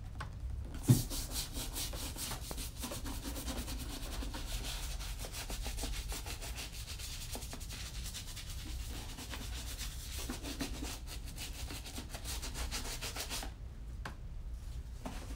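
Small bristle brush scrubbing a leather boot with leather cleaner in rapid back-and-forth strokes, lifting surface dirt. There is a sharp knock about a second in, and the scrubbing stops near the end.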